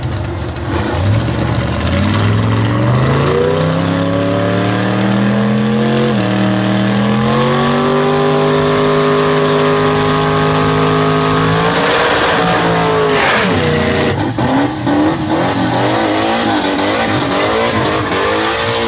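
Drag-race car engines accelerating hard down the strip at full throttle, the pitch climbing, dropping once at a gear shift about six seconds in, then climbing again and holding high. The engine note cuts off about twelve seconds in as the throttle is lifted, followed by an uneven, wavering engine sound.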